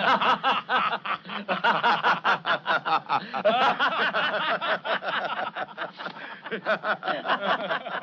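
A group of men laughing together in a loud, continuous run of rapid laughs.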